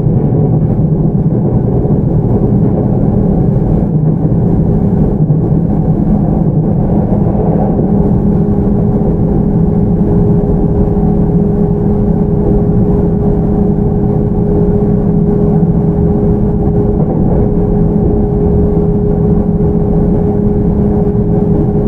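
JR 313-series electric train (motor car MoHa 313-9, Toshiba IGBT-VVVF drive) running at steady speed, heard from inside the car: a loud, even rumble of wheels and running gear, with a steady mid-pitched hum joining about seven seconds in.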